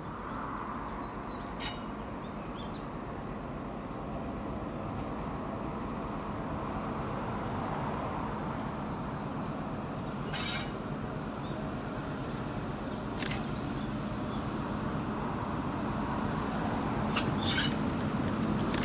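HST (InterCity 125) diesel power car approaching slowly, its engine running with a steady drone that grows louder as it comes closer.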